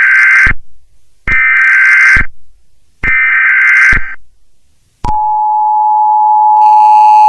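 US Emergency Alert System tones: three short bursts of digital SAME header data tones, each about a second long, marking the start of an emergency alert. About five seconds in, the steady two-tone EAS attention signal begins, and more, higher tones join it near the end.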